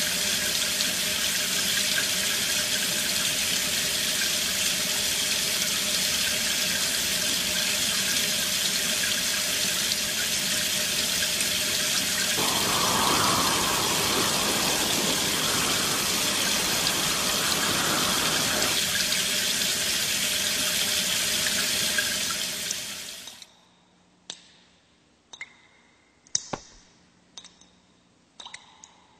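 A loud, steady rushing noise, like water running hard from a tap, that swells in the middle and cuts off suddenly about 23 seconds in. Then come a handful of sharp, isolated clicks and clinks.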